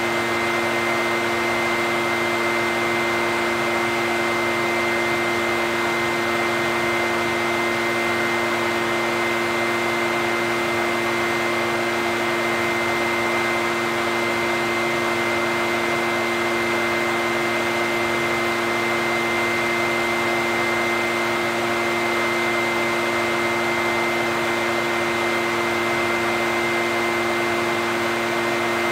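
Echo backpack leaf blower's two-stroke engine and fan running at a steady speed: an even rush of air carrying a constant high whine and a lower hum, unchanging throughout.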